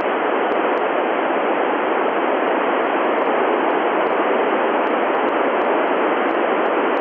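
Steady FM receiver static: open-squelch hiss from a transceiver tuned to the TEVEL-7 satellite's 436.4 MHz downlink, with no signal coming through.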